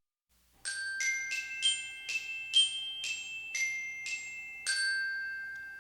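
A short melody of about ten bright, bell-like struck notes on mallet percussion such as a glockenspiel, each note ringing on. The last note, near the end, is held and fades away.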